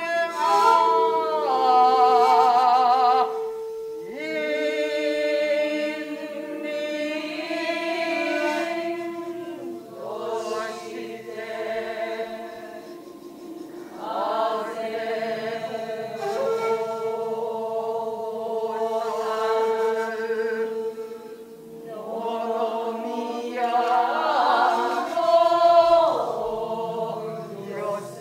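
A chorus of voices chanting in slow phrases a few seconds long, with long held notes that waver.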